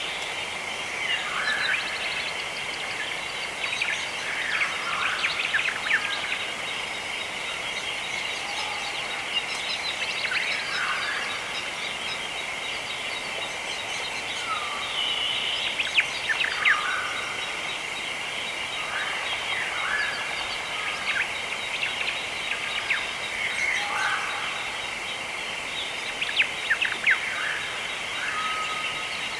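Birds calling and chirping repeatedly, short calls every second or two, over a steady high-pitched hiss or hum that runs underneath throughout.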